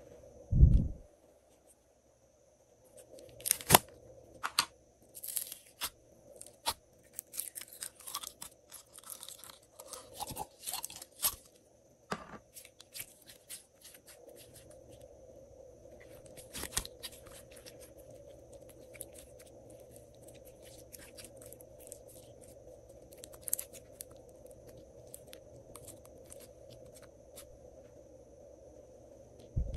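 Slime being squeezed, stretched and folded by hand, giving crackly, clicking pops that are busiest in the first dozen seconds and sparser later. A dull thump about a second in is the loudest sound.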